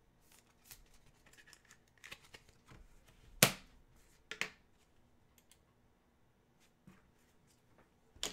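Trading cards and plastic card holders being handled on a wooden table: soft rustles and light slides, with a sharp tap about three and a half seconds in and a smaller one about a second later.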